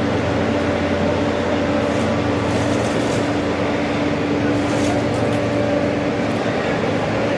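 Induction melting furnace running with a steady electrical hum: a constant drone holding a couple of steady tones over a noisy background.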